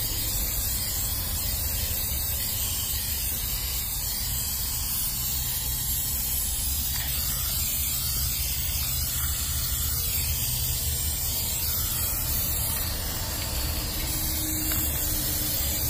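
Aerosol can of Flex Seal Clear rubber sealant spraying in one long, steady hiss.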